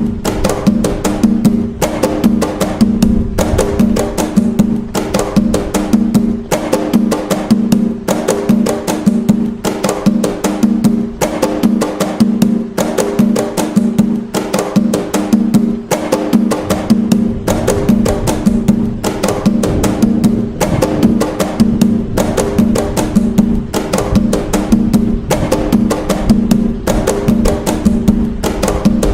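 Atabaque hand drums playing the toque nagô, the Umbanda rhythm, continuously: a fast, even run of hand strikes with a ringing drum tone under them.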